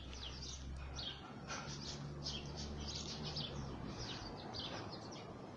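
Small songbirds chirping and twittering in quick, high, repeated calls, likely caged birds kept in the home. A low steady hum runs underneath and fades out about four and a half seconds in.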